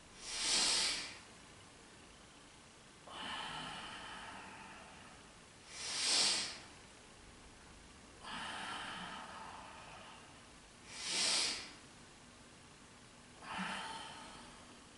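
A woman breathing audibly through the nose in time with slow single leg lifts. About every five seconds a short, sharp, hissy breath alternates with a longer, softer one, and the last sharp breath near the end is weaker.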